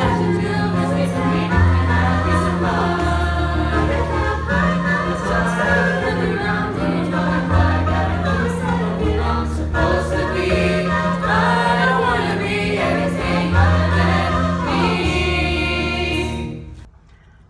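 A class of children singing a song together over instrumental backing with held bass notes; it cuts off abruptly near the end.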